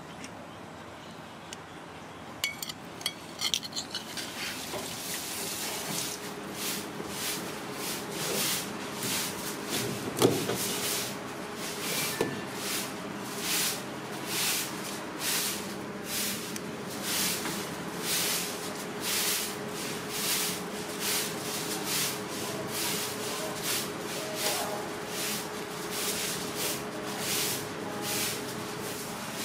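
A broad cleaver worked against raw ribbon fish on a plastic cutting board in regular scraping strokes, about one to two a second, starting about five seconds in, over a faint steady hum.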